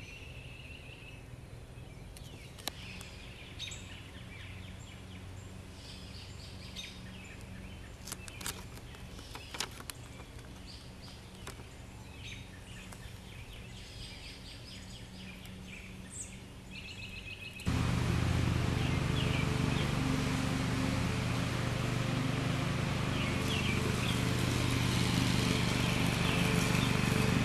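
Quiet outdoor ambience with birds chirping and scattered light clicks and rustles from handling a paper paint stencil on a plastic starter cover. About two-thirds of the way through it cuts abruptly to a louder steady noise with a low hum.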